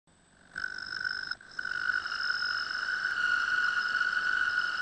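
Milling machine cutter cutting aluminum, with a steady high-pitched singing tone and overtones. It starts about half a second in and drops out briefly near one and a half seconds.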